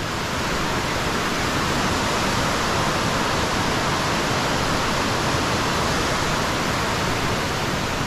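Steady rush of falling water from a 100 ft waterfall and the rapids below it.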